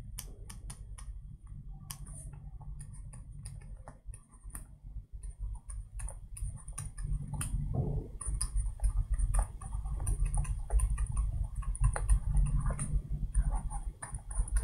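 Light clicks and taps of a stylus on a pen tablet as notes are handwritten, irregular and many, over a low rumble that grows louder about halfway through.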